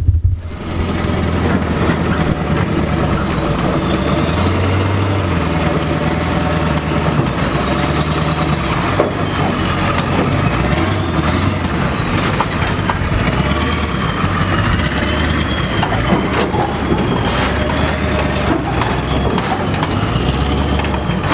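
A vehicle engine running steadily at a constant low pitch, with a faint wavering high tone above it.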